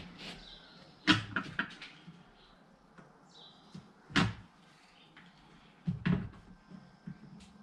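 Several separate knocks and taps of a long board being handled and set down on a workbench, a quick cluster about a second in, the loudest single knock about four seconds in and another pair near six seconds.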